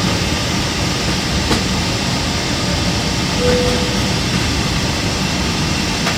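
Steady low rumble and hiss of an airliner cabin before departure. A brief soft beep sounds about three and a half seconds in.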